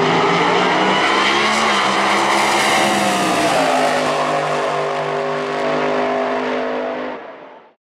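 Two supercharged AA/Gas drag cars' engines at full throttle, launching and racing side by side down the drag strip. The sound stays loud for most of the run, then fades and cuts off near the end.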